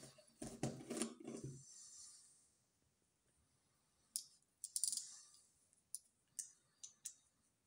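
Hands gripping and turning a lens on a Zorki-4 rangefinder, then short sharp metallic clicks and ticks from about halfway in as the lens is unscrewed from the camera's M39 screw mount.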